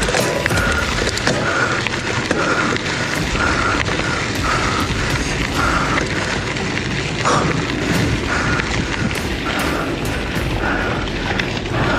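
Wind buffeting the microphone of a bicycle rider's camera, with the rumble of tyres on the trail, and a short high squeak repeating about every two-thirds of a second.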